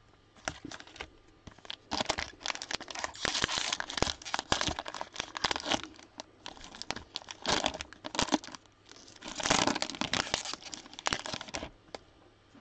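Cellophane wrapper of a 2021 Donruss football cello pack being torn open and crumpled by hand. The crinkling comes in bunches of quick crackles, heaviest about two seconds in and again a couple of seconds before the end.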